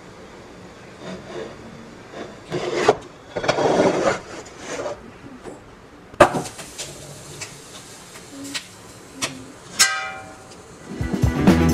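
Tea towel rubbing over a stainless-steel bowl as it is dried, then kitchen bowls knocked as they are handled, one ringing briefly. Music comes in near the end.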